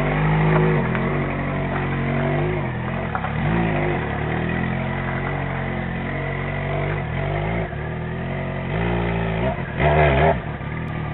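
Yamaha XJ6 motorcycle's inline-four engine running under way, its revs rising and falling again and again, with the loudest rev burst near the end.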